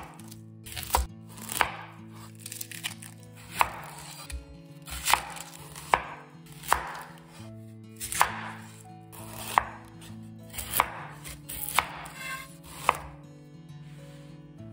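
Chef's knife cutting through onions and striking a bamboo cutting board: about a dozen sharp knocks, spaced irregularly roughly a second apart.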